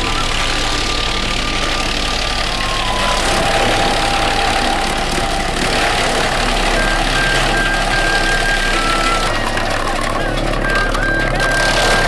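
Disc wood chipper running and chipping branches and logs fed along its conveyor: a loud, steady machine noise.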